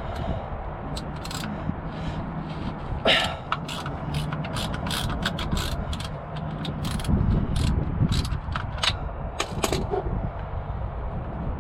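Ratchet wrench clicking in short irregular runs, working a fastener on the truck's transfer case, over a steady low hum.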